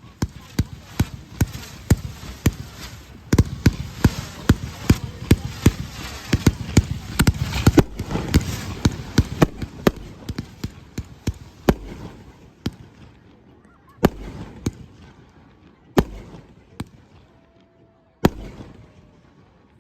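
Fireworks going off: a rapid volley of sharp bangs with crackling, densest about three to ten seconds in, then thinning to single loud bangs a couple of seconds apart near the end.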